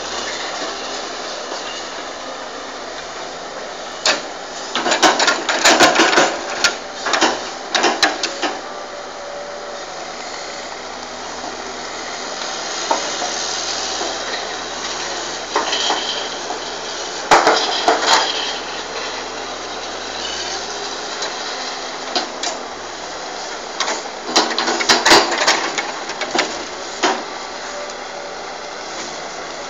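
Cat tracked log loader's diesel engine running steadily while its grapple handles logs, with clusters of heavy wooden knocks and clunks as logs are gripped, swung and dropped onto the pile: a few seconds in, around the middle, and again near the end.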